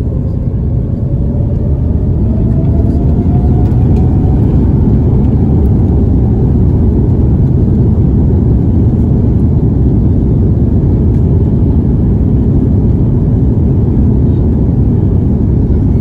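Jet airliner cabin noise while taxiing: a steady low rumble of the engines and the wheels rolling on the taxiway, heard through the cabin. A faint whine rises in pitch and the noise grows louder over the first few seconds.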